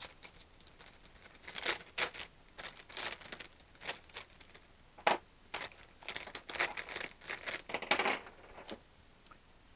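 Small clear plastic zip bag crinkling as it is opened and handled, in short irregular crackles, with light knocks as small plastic parts are taken out and set down on the table.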